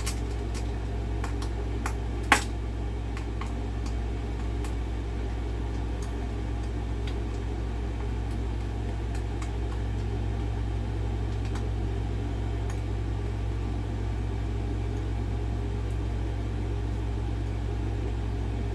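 Small clicks and taps of screws and a screwdriver being handled and fitted, one sharper click about two seconds in, over a steady low hum.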